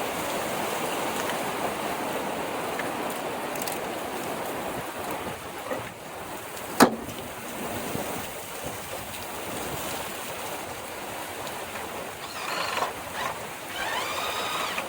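Wind blowing over the microphone as a steady rushing noise, with one sharp click about seven seconds in.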